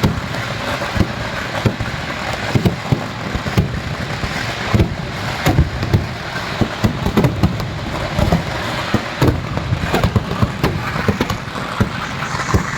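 Temple festival fireworks going off in quick, irregular succession: many sharp bangs a second over a constant crackle.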